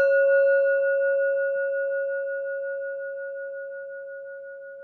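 A singing bowl struck once, ringing on and slowly fading, with a slight wavering in one of its higher tones.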